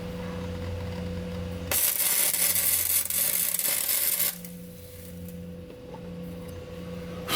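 A welding arc crackling and hissing for about two and a half seconds, starting a couple of seconds in: a tack weld joining a quick-release steering hub adapter to the steering shaft. A steady low hum runs beneath it.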